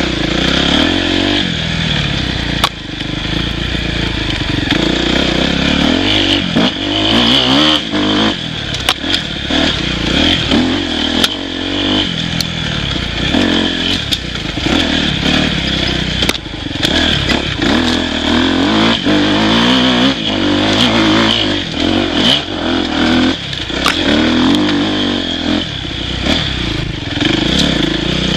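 Dirt bike engine revving up and down over and over as the throttle is worked, its pitch rising and falling. Scattered sharp knocks and clatter run through it.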